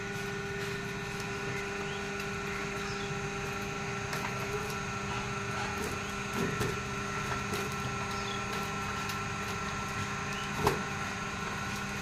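Electric motor of a hydraulic baler's pump running with a steady hum of several fixed tones, and a single sharp knock near the end.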